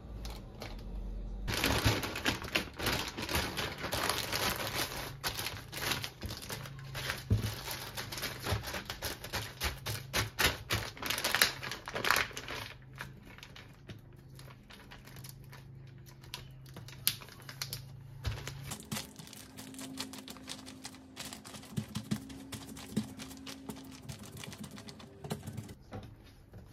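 Knife chopping quickly on a cutting board: a dense run of rapid taps for about ten seconds, then slower, scattered taps.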